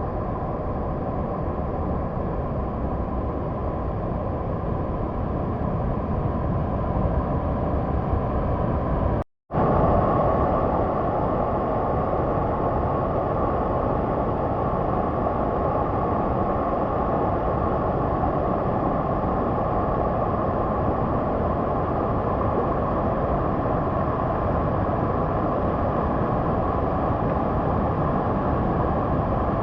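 Waterfall roaring: loud, steady rushing water, broken by a split-second gap about nine seconds in.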